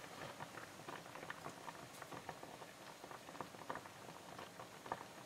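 Cream-based pork goulash sauce simmering in a pan, heat just turned down: faint, irregular popping and ticking of small bubbles over a soft hiss.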